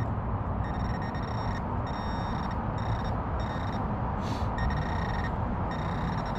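Handheld metal-detecting pinpointer probe in a dug hole, sounding a high-pitched buzzing tone that switches on and off in short runs with brief gaps as it alerts on metal in the soil, over steady background noise.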